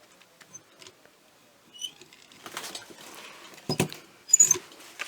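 Cardstock and paper handled on a craft table: light rustling and scratching with a few small clicks, then two louder knocks a little under four seconds in and again about half a second later.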